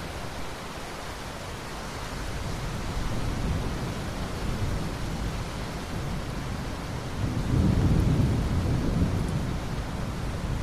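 Steady rain with rolling thunder: low rumbles swell about three seconds in and build to a louder peak around seven to nine seconds in before easing off.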